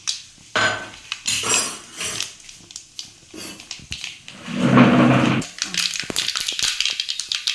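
Mustard seeds dropped into hot oil in a pan: a few clatters of the pan and utensil, then from about halfway in a dense, fast crackling as the seeds start to pop and sputter.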